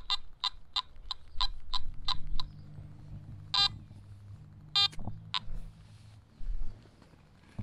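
Metal detector beeping: a quick run of short, even beeps, about three a second, for the first two seconds, then three more single beeps spaced well apart.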